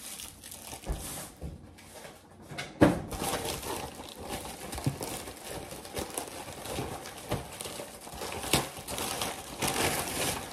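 Plastic packaging crinkling and rustling as an item is unwrapped by hand, with irregular sharp crackles, the loudest about three seconds in and again near eight and a half seconds.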